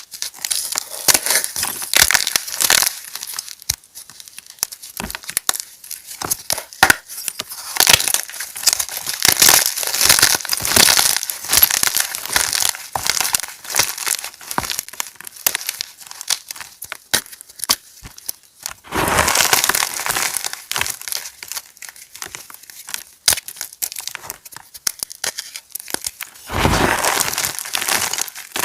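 Pebbles of fresh gym chalk being crushed, a crisp, irregular crackling and crumbling made of many small cracks. Two longer, louder crunches come about two-thirds of the way in and near the end.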